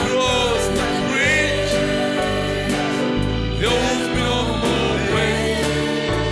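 Live gospel worship music: a band with a steady drum beat and a stepping bass line under a melody line that bends and wavers in pitch.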